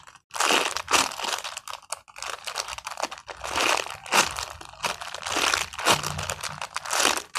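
A handmade paper squishy being squeezed and handled, its paper crinkling and crunching in many short bursts.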